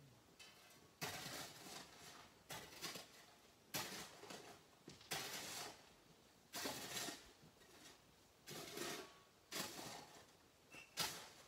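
Hand tools digging and scraping at sandy rock: about eight short rasping strokes, irregularly spaced a second or so apart.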